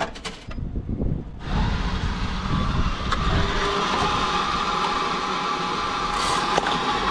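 Coin-operated hot-drink vending machine running as it makes a chocochino. After a few clicks, a steady mechanical whirring with a hum starts about a second and a half in and keeps going.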